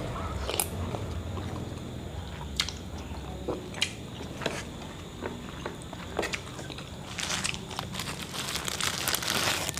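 Eating sounds with scattered sharp clicks, then from about seven seconds in a thin plastic snack bag crinkling as it is handled and opened.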